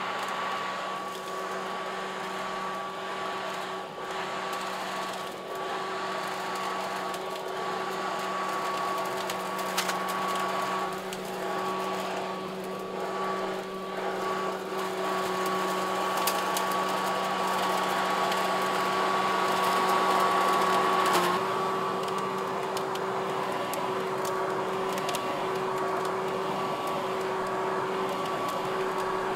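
Ryobi 40-volt Vac-Attack cordless leaf vacuum and mulcher running steadily, a fan whine over rushing air, as it sucks up maple seeds from the gutter and lawn. A few sharp ticks come through along the way.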